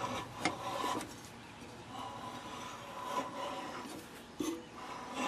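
Lawn mower blade turned slowly by hand, turning the engine over on its bent crankshaft with a dry rubbing, scraping sound and a few light clicks.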